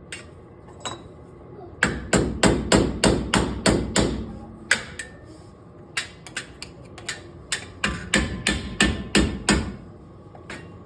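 Two quick runs of hammer blows on metal, about four or five a second, driving off a seized front wheel hub assembly whose bearing has failed; the first run starts about two seconds in, the second near the end, with a few single strikes between.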